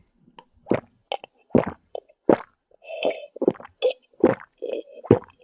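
Close-miked eating: wet, squishy chewing and mouth smacks, about two a second.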